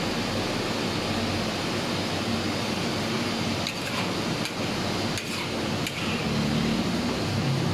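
Steady hiss of wood ear mushrooms boiling in a milky broth in a wok on the stove. A few light clicks of a spatula against the wok come from about halfway through as the mix is stirred.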